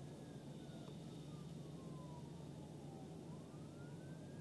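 Faint emergency-vehicle siren wailing: one slow fall in pitch, then a rise about three seconds in that turns to fall again near the end, over a steady low hum inside the car.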